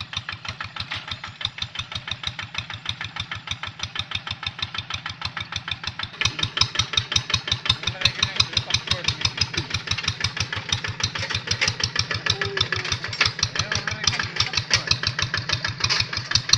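Single-cylinder Kubota diesel engine of a Quick Boxer 1000 two-wheel hand tractor running with a steady, fast firing beat while ploughing dry, hard ground; it gets louder about six seconds in.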